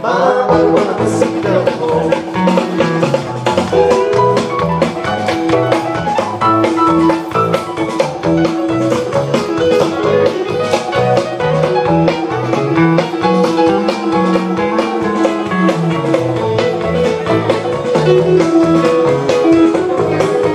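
Rock band playing live, with electric guitar, a moving bass line and a steady drum beat.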